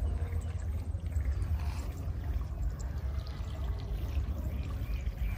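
Water trickling and splashing at the pond's edge over a constant low rumble.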